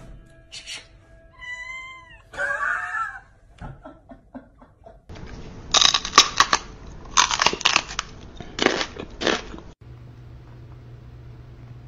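A cat meows twice in the first few seconds, each a pitched cry that falls and rises. Then come several loud, harsh bursts of noise, and near the end a steady low hum.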